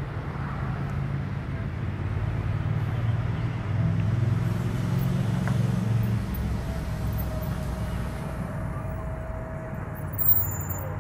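Steady low rumble of motor traffic, with a faint held tone coming in about six seconds in and a short sharp sound near the end.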